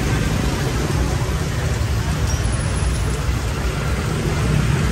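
Steady street traffic noise from motorbikes and cars passing on a wet road.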